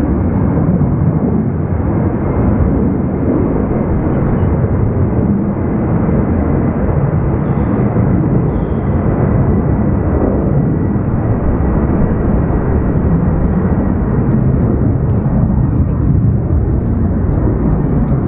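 Jet engines of a twin-engine Boeing 767 at climb power just after takeoff: a loud, steady rumble.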